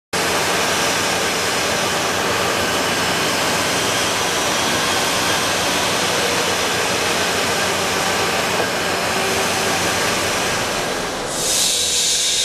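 Fiber separator of a waste-tire recycling line running steadily while ground tire rubber is fed into its hopper. About eleven seconds in the sound switches to a higher, airy hiss: the blower conveying the material to the cyclone.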